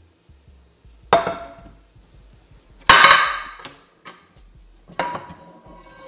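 Metal frying pans being handled and set down on a stone countertop: three metallic clanks with a ringing tail, about a second in, around three seconds in (the loudest) and near the end.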